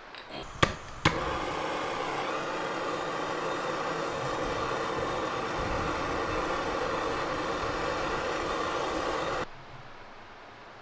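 Handheld butane torch on a gas canister clicked twice to light, then burning with a steady hiss for about eight seconds before it is shut off suddenly. The flame is heating the knife's tang so it can be burned into the wooden handle.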